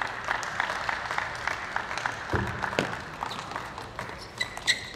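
Arena audience applauding, a dense patter of hand claps. Near the end come a few sharp ringing clicks, like a table tennis ball bouncing.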